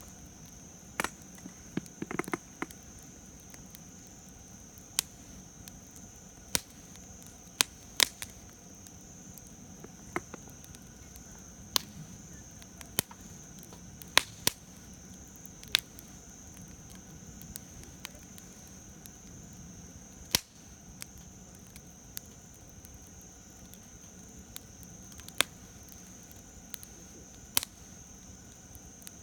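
Campfire of burning wood crackling: sharp, irregular pops and snaps every second or two over a steady high hiss.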